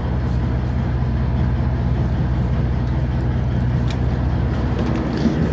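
Sportfishing boat's engine running steadily, a constant low drone.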